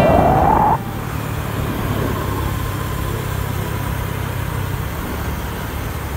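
A rising whine cuts off suddenly less than a second in. Then a steady low rumble of mountain-bike tyres rolling fast on tarmac, with wind rushing over the microphone, during a downhill wheelie.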